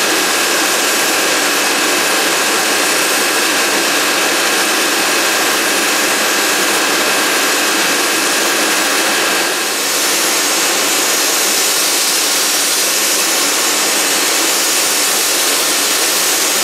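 Compressed-air paint spray gun spraying clear coat onto a car door: a loud, steady hiss of air and atomised paint. A faint high whistle over the hiss stops about ten seconds in, where the hiss briefly dips.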